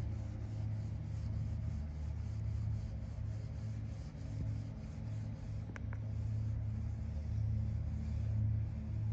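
Steady low rumble with a faint hiss over it, and two light clicks about six seconds in.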